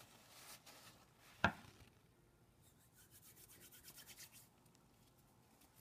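Hands working Play-Doh with a plastic tool to make spaghetti strands: faint rubbing and scraping, with one sharp knock about a second and a half in and a run of faint quick ticks about halfway through.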